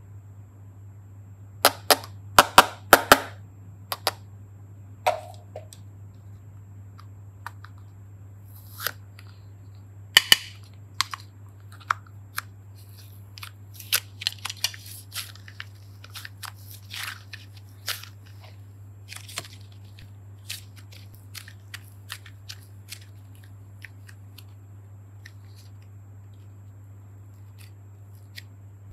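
Hard plastic toy containers, a ball and a star, being snapped open: a cluster of sharp plastic clicks and pops about two seconds in. Then scattered smaller clicks and rustles as the containers and red modelling clay are handled, thinning out to faint ticks in the second half, over a low steady hum.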